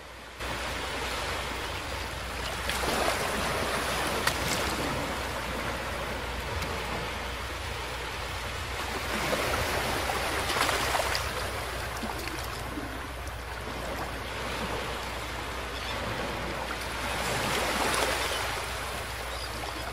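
Small waves breaking and washing up a beach, the surf swelling and fading about every six to seven seconds over a steady low rumble.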